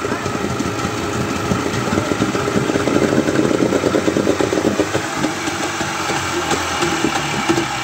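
Yamaha 40 hp two-stroke outboard motor running steadily on a test stand, a dense rapid firing beat. It is running on a fuel mix with too much two-stroke oil in it, which makes it smoke heavily.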